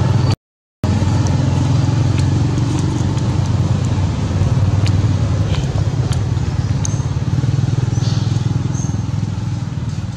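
Steady low motor rumble, with faint ticks and a few short high chirps near the end; the sound cuts out for a moment about half a second in.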